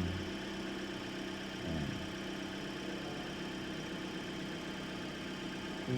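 Toyota Corolla's 1ZR-FE four-cylinder engine idling steadily, running again now that its blown EFI No. 1 fuse has been replaced.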